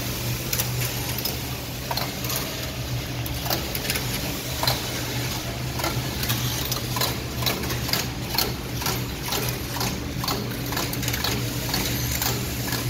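LX1132F-14GG computerized flat knitting machine running: a steady hum under a continuous run of sharp clicks and clacks from the carriage and needles as it knits, the clicks coming thicker in the second half.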